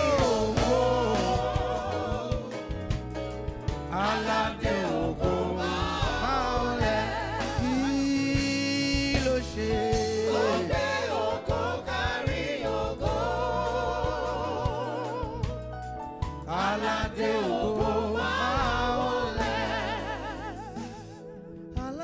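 Live gospel worship music: a male lead singer singing held, wavering notes with vibrato, backed by a choir of backing singers over a steady low bass accompaniment.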